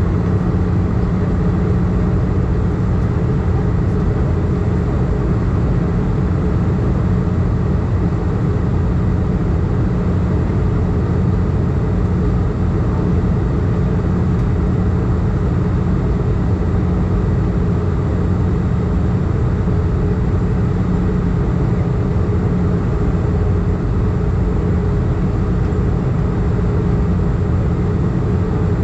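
Steady in-flight cabin noise of an Airbus A320, heard from a window seat over the wing: the drone of the jet engines and airflow is deep and even, with a couple of steady hum tones running through it.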